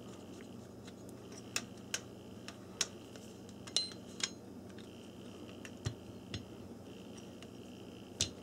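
Light metallic clicks and clinks, about eight of them, scattered unevenly, as a pistol slide and the tool parts are handled and seated in an aluminium sight press.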